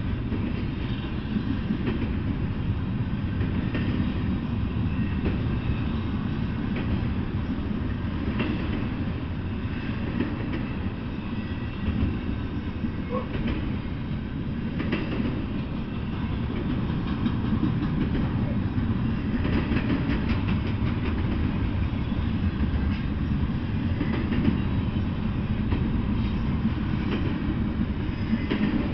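Double-stack intermodal freight train's well cars rolling past in a steady rumble, with the wheels clicking irregularly over the rail joints.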